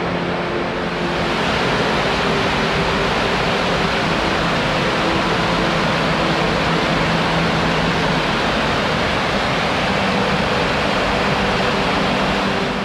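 Steady rush of creek water tumbling over a small rocky cascade. It grows louder about a second in and eases off at the very end.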